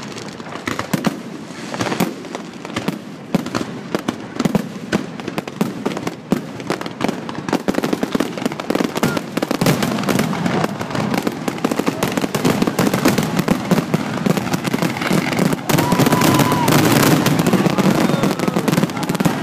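Aerial fireworks bursting overhead in a rapid, continuous barrage of bangs and crackle, growing denser and louder from about halfway through.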